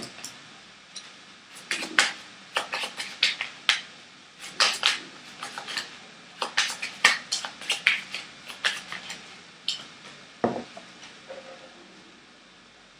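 Tarot cards being handled and laid down on a wooden table: a quick irregular run of sharp clicks and taps, with a single duller knock about ten and a half seconds in.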